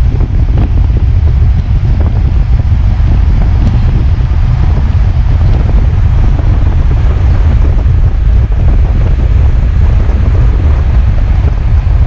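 Wind buffeting the microphone at the open window of a moving vehicle: a loud, steady low rumble.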